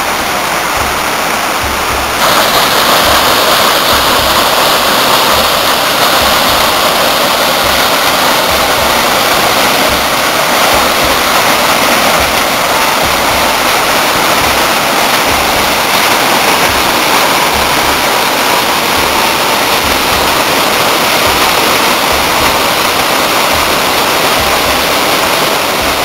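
Waterfall rushing: a steady, loud wash of falling water that grows louder and brighter about two seconds in.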